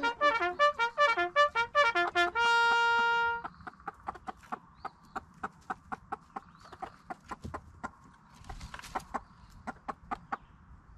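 A bugle-style trumpet call, a run of quick notes that ends on one held note about three and a half seconds in. After it come short, sharp chicken clucks, a few a second.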